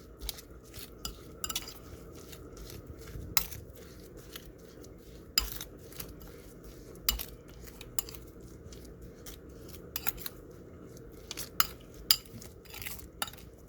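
A spoon stirring sliced turnip and sugar in a bowl, with irregular clinks and scrapes against the bowl. The sugar is being mixed in to draw the turnip's juice out as a syrup.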